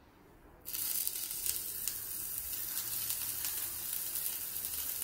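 Melted butter on a hot flat tawa starting to sizzle suddenly under a chapati pizza base as it is set down, about a second in, then sizzling steadily with scattered crackles.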